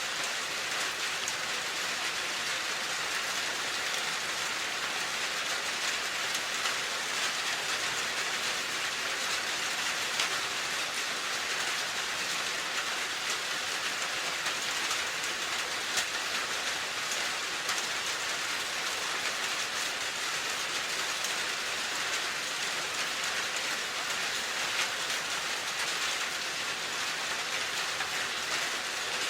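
Steady rain falling on a surface, a continuous even hiss with scattered drop ticks.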